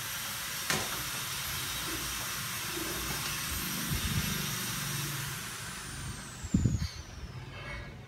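Steady hiss, with a sharp click about a second in and a few soft knocks and handling sounds around the middle and near the end, as a pond apple is peeled by hand with a small knife.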